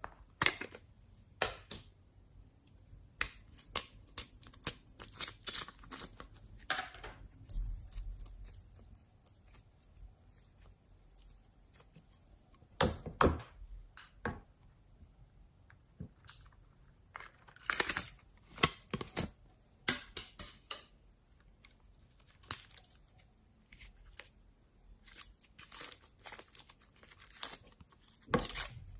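Slime being squeezed and worked by hand, giving irregular sharp crackles and pops in scattered clusters.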